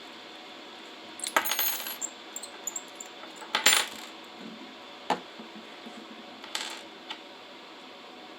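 Small metal parts clinking and jingling against a hard surface in short bouts, about a second in, near three and a half seconds (the loudest), and near six and a half seconds, with a single sharp click just after five seconds.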